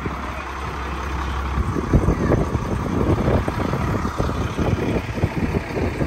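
Strong gusty wind buffeting a phone's microphone, with irregular rumbling gusts that grow stronger after about a second and a half.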